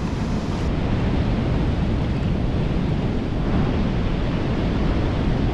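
Steady rush of a high, fast river with water pouring over a low dam's spillway, mixed with wind buffeting the microphone.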